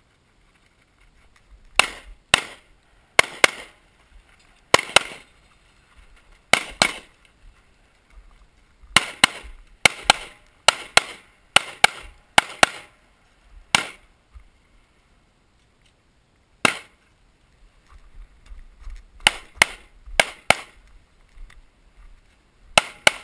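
Competition pistol shots fired mostly in quick pairs, double taps of two shots per target, about two dozen shots in all, with short pauses between pairs and a longer gap of a few seconds partway through.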